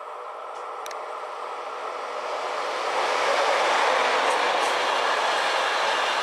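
Freight train of enclosed car-transporter wagons rolling past close by. Its wheel and rolling noise grows louder over the first three seconds as it arrives, then holds steady, with a few light clicks from the wheels on the rails.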